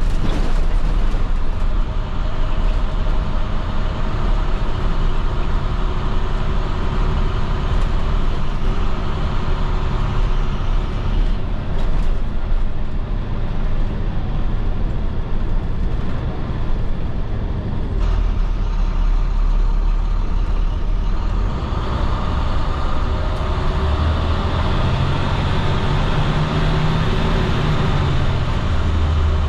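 International MaxxForce DT six-cylinder diesel of a school bus running under way, with steady road noise. Near the end the engine note climbs and then drops back.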